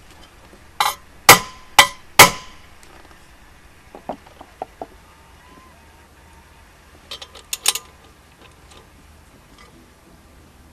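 Four sharp hammer blows on a steel flywheel puller fitted to a Johnson outboard motor's flywheel, metal ringing on each strike, to free the flywheel. Lighter metallic clinks of hand tools being handled follow, about four seconds in and again about seven seconds in.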